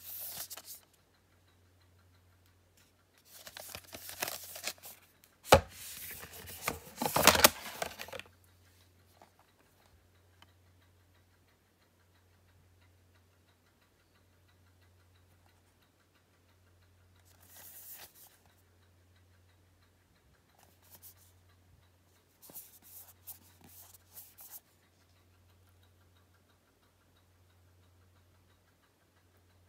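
Blu-ray cases and packaging being handled: bursts of rustling and scraping with a couple of sharp knocks, loudest a few seconds in, then a few shorter brushes. A steady low hum runs underneath.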